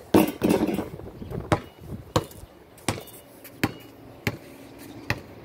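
A basketball shot hits the hoop with a loud clattering bang, then the ball bounces on hard pavement six times, about one bounce every two-thirds of a second, like a steady dribble.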